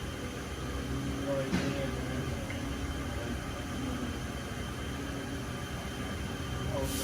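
Haas VM-6 CNC vertical machining center running with a steady hum and hiss, with a faint click about a second and a half in.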